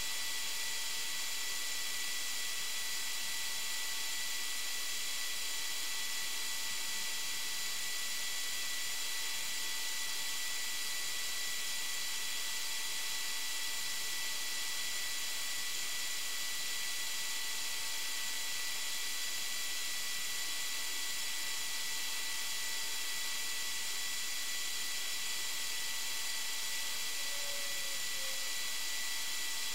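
Steady electronic hiss with a faint high whine of fixed tones: the recording device's own noise, with no other sound standing out.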